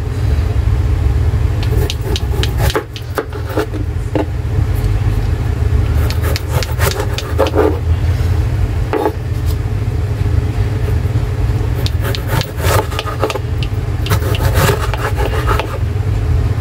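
Kitchen prep sounds: irregular clicks and knocks of utensils and cookware over a steady low hum.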